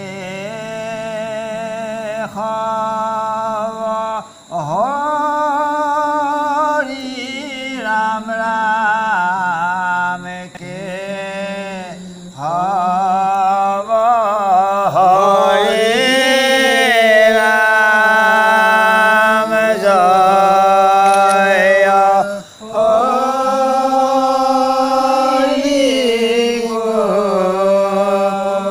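A male voice chanting Assamese devotional naam (naam-prasanga) in long, held, wavering notes, phrase after phrase with short breaths between. It is fullest in the middle stretch.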